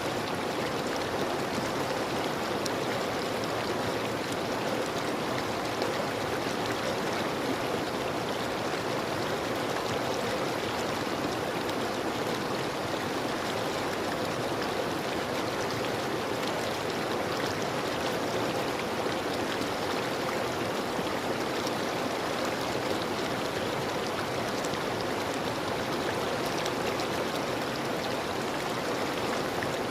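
River water flowing steadily over rocks in a stream, an even rushing sound.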